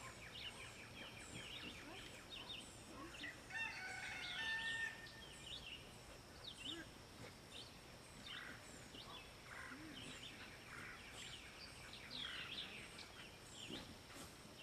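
Faint birdsong: many birds chirping and calling throughout, with a louder, longer call about four seconds in.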